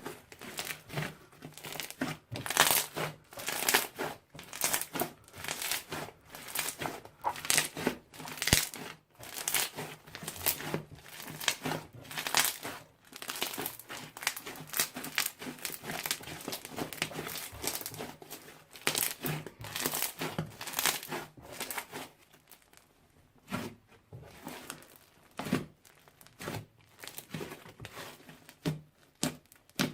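Slime being worked by hand, a dense run of crackling, clicking pops that thins out to scattered pops for the last several seconds.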